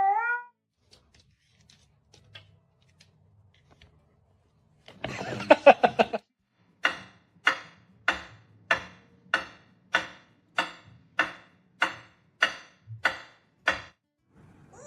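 The tail of a cat's rising meow, then a few quiet seconds. About five seconds in comes a brief rattling clatter, followed by a steady series of about a dozen short, sharp knocks, a little under two a second.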